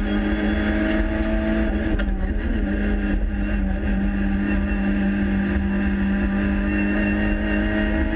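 Renault Clio 3 Cup race car's four-cylinder engine heard from inside the cabin, running hard under load at a mostly steady high note, with a brief dip about two seconds in.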